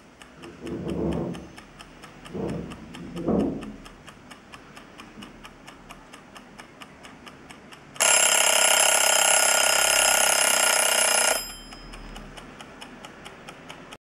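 Egg-shaped mechanical kitchen timer ticking rapidly and evenly as it runs down. About eight seconds in, its bell rings loudly for three to four seconds, then cuts off suddenly, and the ticking carries on faintly afterwards.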